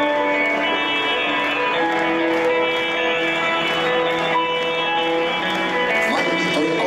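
Live rock band playing an instrumental passage, with guitars holding long sustained notes and chords at a steady, loud level.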